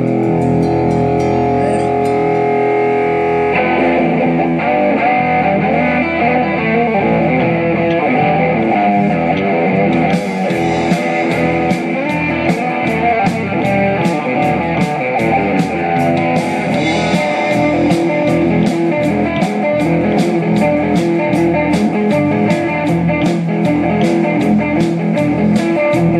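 Live rock band playing the instrumental opening of a song: guitar chords with bass, and drums with regular cymbal hits entering about ten seconds in.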